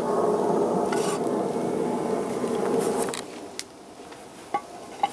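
Frying pan sizzling as a cooked bannock patty is slid out of it, cutting off about three seconds in; then a few sharp clicks.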